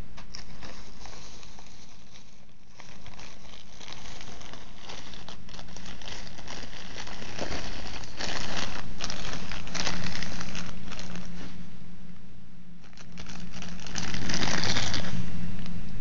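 Crinkling and rustling of a padded bubble mailer being opened and the plastic bag around a laptop AC adapter being handled. It comes in irregular bursts, loudest about eight to ten seconds in and again near the end.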